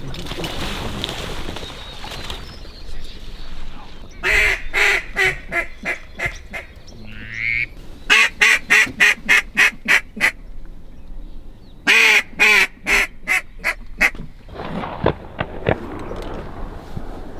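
Mallard quacking in three loud runs of evenly spaced quacks, about four a second, each run fading away over about two seconds: the hen mallard's quack series. A short whistled note comes between the first two runs.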